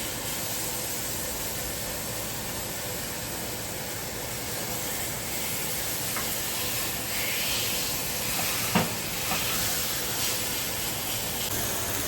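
Ribeye steaks searing in a hot cast iron skillet, a steady sizzling hiss. A single sharp knock sounds a little under nine seconds in.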